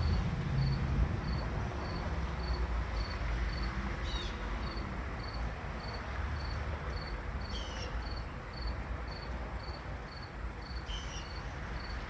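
Insect chirping, one high short chirp repeated evenly about three times a second, over a steady low background rumble; three brief sliding higher calls break in now and then.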